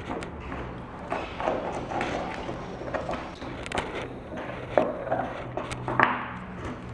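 Basset hound puppy licking and gnawing a raw beef marrow bone, nudging it across a tile floor: irregular wet licks and scrapes, with several sharper knocks of the bone against the tiles.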